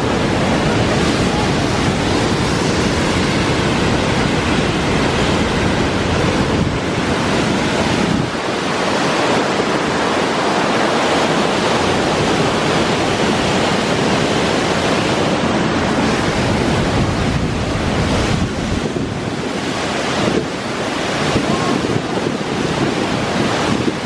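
Loud, steady rushing of a river cascade pouring over rocks, with wind buffeting the microphone.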